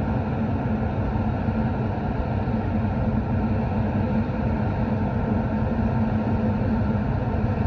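A tanker's engines and onboard machinery running alongside the wharf: a steady drone with one constant hum held through it.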